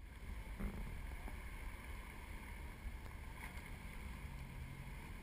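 Lifted 4x4 pickup truck's engine running as the truck wades through a muddy forest stream, with water splashing around its tyres.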